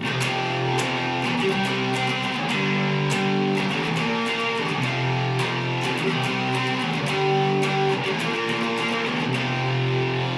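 Mexican-made Fender Stratocaster electric guitar played on its neck pickup alone (a Lace Sensor), through distortion: chords strummed and held, changing every second or two.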